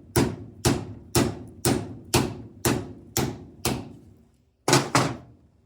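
Metal hammer taps seating a bushing into a small planetary gear of a starter motor: eight even, ringing strikes about two a second, a pause, then two quick final taps near the end.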